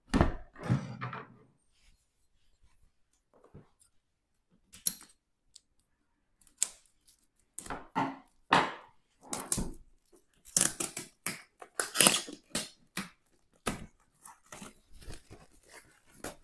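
Plastic shrink wrap being torn and peeled off a board game box, crackling and crinkling in irregular bursts, busiest and loudest in the later part.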